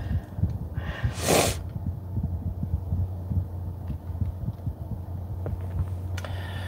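A person who has been crying sniffs hard about a second in and takes a sharp breath near the end, over a steady low hum inside a car.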